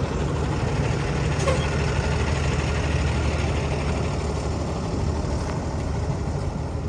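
Large truck engine idling steadily, a low even hum.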